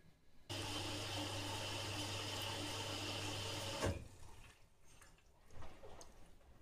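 Front-loading washing machine taking in water: a steady rush of water with a low hum starts about half a second in and cuts off abruptly near four seconds. After that come fainter, irregular sounds of the drum turning the wet laundry.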